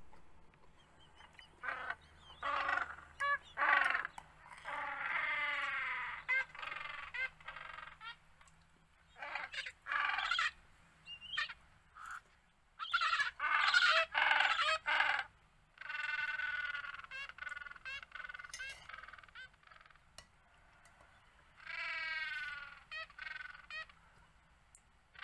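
Magellanic penguins braying: about six bouts of loud honking calls, each a run of short notes building into longer drawn-out ones, with a second or two of pause between bouts.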